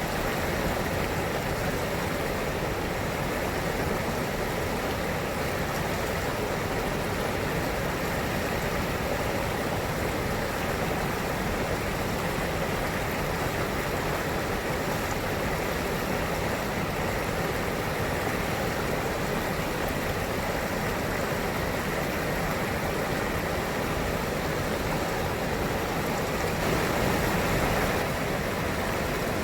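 River water flowing and rushing steadily, a constant even wash of noise that swells slightly near the end.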